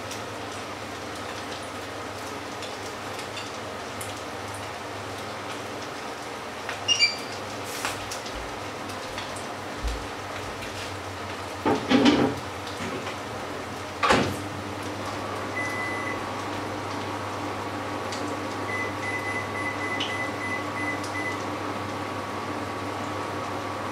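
A pancake sizzling steadily in shallow oil in a frying pan, with off-screen kitchen knocks and clatter, loudest about halfway through. From about fifteen seconds in, a steady appliance hum with a thin high whine runs on, and a few faint high pips sound.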